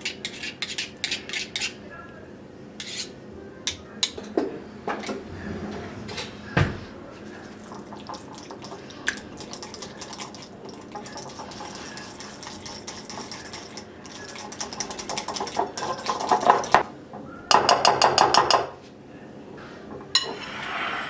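Kitchen work with dishes and utensils: scattered clinks and knocks of crockery and cutlery, and a quick, even rattle lasting about a second near the end.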